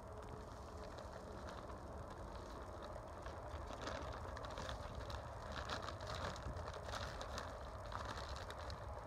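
Black plastic sheeting of a hive insulation wrap rustling and crinkling as it is handled and pulled into place, with irregular crackles.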